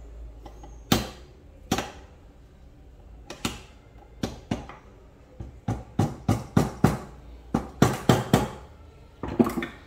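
Small hammer tapping a pin punch to drive a tiny pin into a Reximex Throne PCP air rifle's action. A few spaced taps come first, then a quicker run of about a dozen light taps, and a last couple near the end.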